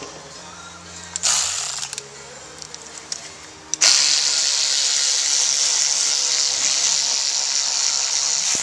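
Power ratchet spinning a brake caliper bolt on the car's front brake: a short burst about a second in, then a long steady run from about four seconds in.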